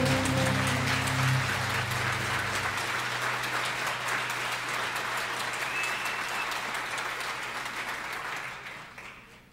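Concert audience applauding, with the band's last low note dying away in the first second or two. The applause fades out near the end.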